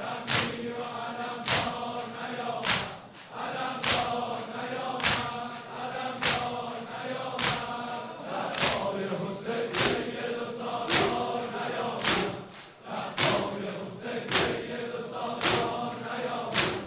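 A congregation of mourners chanting a Muharram noheh in unison, with massed sharp hand strikes of ritual self-beating (sineh zani) in time, about one every 1.2 seconds.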